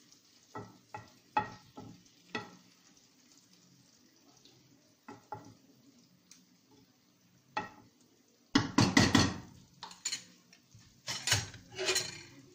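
A spoon clinking and scraping in a cast-iron frying pan as a beaten egg mixture is poured over courgettes and stirred in, with a faint sizzle underneath. A few light clinks come in the first seconds, then a run of louder clatters and knocks about two-thirds of the way in and again near the end.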